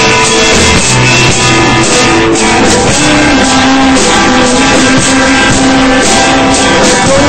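Rock band playing live: electric guitars, bass guitar and drum kit together, with a sustained melodic line held and bent over the chords.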